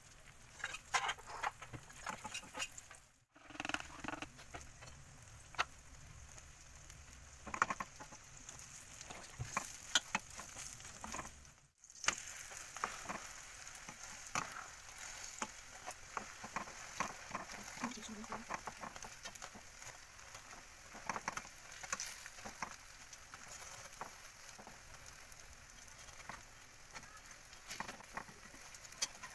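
Egg martabak frying in oil in a frying pan, sizzling steadily, with many sharp clicks and scrapes of a spatula against the pan. The sound cuts out briefly twice.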